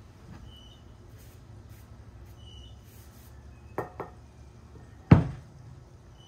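A wooden mallet head being handled and set down on a wooden work board. Two light clicks come a little before four seconds in, then a solid knock about five seconds in as the head is stood upright. A faint, short high chirp repeats about every two seconds in the background.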